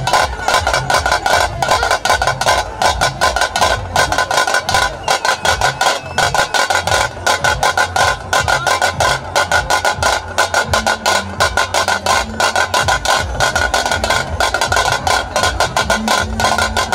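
Loud, fast drumming: a dense, unbroken stream of rapid drum strokes with a sustained tone running through it.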